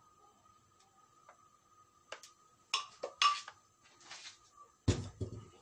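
Kitchen utensil clatter while batter goes into a nonstick frying pan: a spoon clinking and scraping against the bowl and pan, loudest about three seconds in, then a heavier knock near the end.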